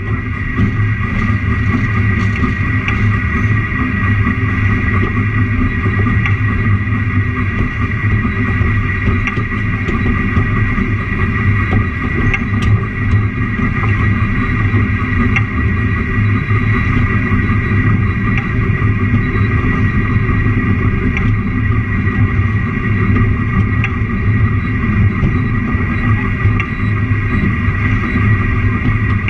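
Narrow-gauge train running along the track: a loud, steady drone with occasional faint clicks from the wheels on the rails.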